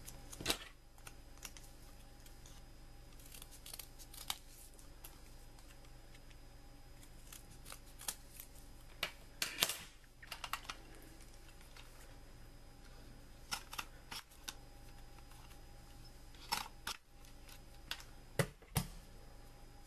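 Scattered light clicks, taps and rustles of hands handling small objects on a wooden tabletop, coming in short clusters, over a faint steady hum.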